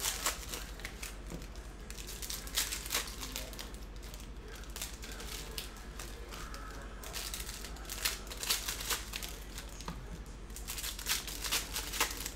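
Foil wrappers of hockey card packs crinkling and being torn open by hand, in spells of crackling a few seconds apart.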